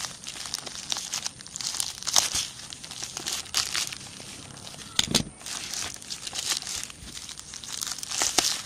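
Plastic mailer bag crinkling and tearing as it is cut and pulled open by hand, in irregular rustles, with one dull knock about five seconds in.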